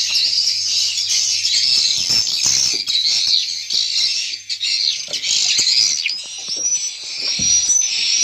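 Swiftlets twittering: a dense, continuous mass of high chirps from many birds, with a few brief low thumps.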